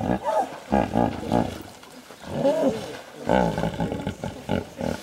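Hippopotamuses calling: two wheeze-honk bouts, each a rising-and-falling wheeze followed by a run of rapid, rhythmic grunting honks.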